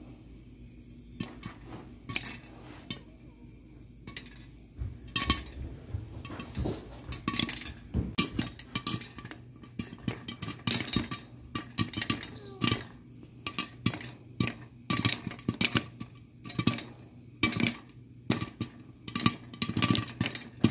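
Popcorn kernels popping in a covered pan, the pops ticking against the glass lid. A few scattered pops at first, then from about five seconds in, rapid popping with many pops a second.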